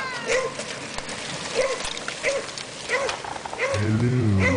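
A dog barking, about six short barks spaced a little under a second apart, with a deep voice coming in near the end.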